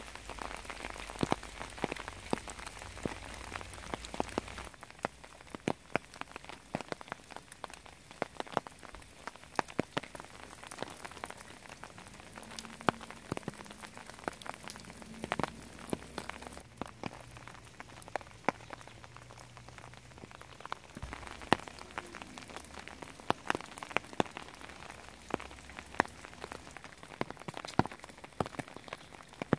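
Rain falling: a soft steady hiss with individual drops landing close by at irregular moments, a few each second, the drops standing out sharply above the hiss.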